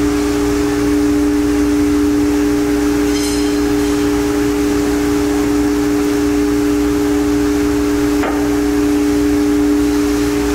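Background music: a steady, unchanging held two-note drone, with a faint knock about eight seconds in.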